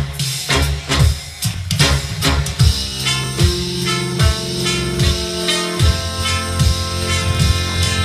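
Recorded music with a drum kit and guitar playing through a pair of vintage National (Technics) SB-45 loudspeakers; sharp drum hits give way to held notes about three seconds in.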